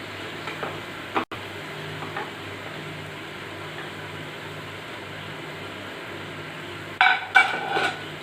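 Sliced onions sizzling steadily in hot oil in a kadai, nearly browned. Near the end come a few louder scrapes and clinks of a utensil against the pan.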